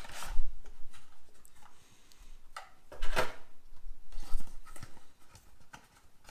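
Cardboard box and clear plastic tray being handled, with separate strokes of scraping and rustling and dull bumps against the table. The loudest comes about three seconds in.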